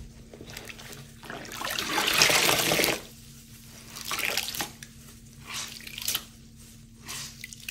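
A soaked sponge squeezed by gloved hands in a bowl of sudsy fabric-softener rinse water, the water gushing and splashing out of it. One long pour runs for about a second and a half, starting a little over a second in. A shorter squeeze follows, then a few smaller splashes and drips.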